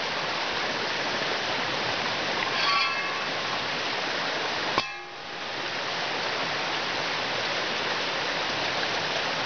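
A creek rushing steadily over rocks. About three seconds in there is a brief high squeak, and a little before halfway a single sharp click, after which the rushing dips for a moment and comes back.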